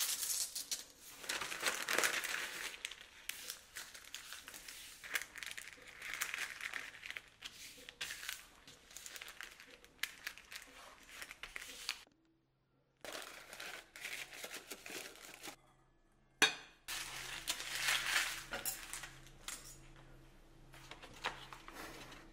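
Kitchen preparation sounds: irregular rustling with clinks and knocks of utensils and dishes. The sounds break off for a moment about twelve seconds in, and a single sharp knock comes a few seconds later.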